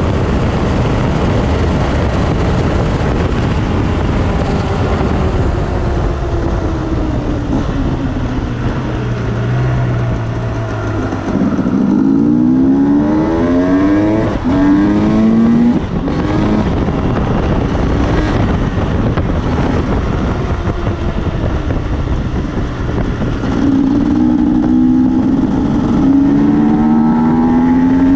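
Enduro motorcycle engines revving and accelerating, the engine note climbing in pitch in two bouts, about halfway through and again near the end, over a constant low rumble.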